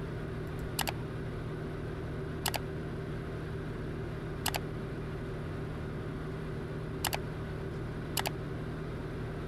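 Five short, sharp clicks, one to two and a half seconds apart, as menu options are tapped through in the ForeFlight app, over a steady low hum.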